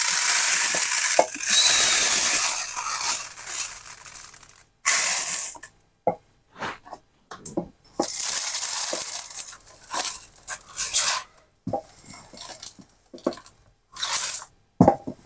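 Dry uncooked rice poured from a plastic storage container into a measuring cup and a plastic bowl, the grains hissing as they stream out, in several pours with short pauses between.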